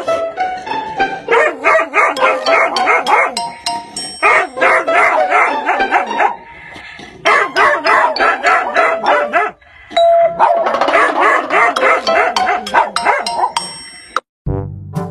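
Small dog barking in four rapid bouts at its own reflection in a mirror, over background music with chime-like notes.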